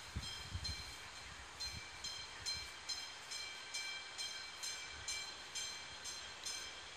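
A warning bell ringing in even strokes, a little over two a second, as a small park-railway train approaches; the strokes stop shortly before the end. A few low thumps sound in the first second.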